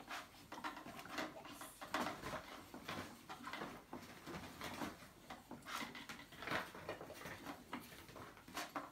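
Toy stand mixer being worked by hand, its plastic and wooden parts giving irregular light clicks and rattles.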